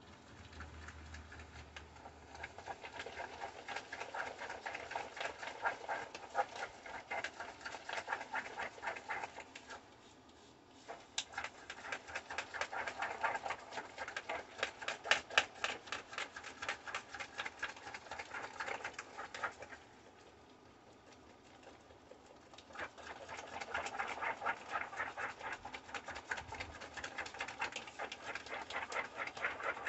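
Rapid clicking strokes of a utensil beating an egg and butter mixture in a bowl, in three spells with short pauses about ten and twenty seconds in.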